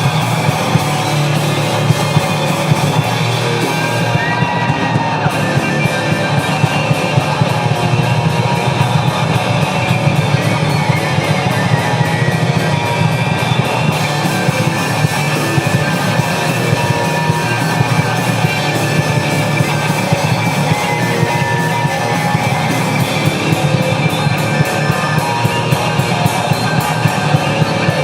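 Loud rock music with distorted electric guitars and a fast drum beat.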